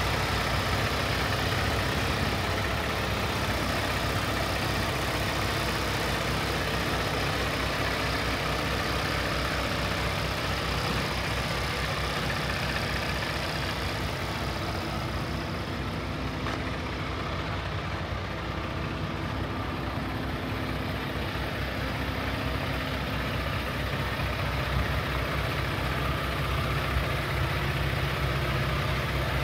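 Peterbilt 579's Paccar MX-11 inline-six diesel idling steadily.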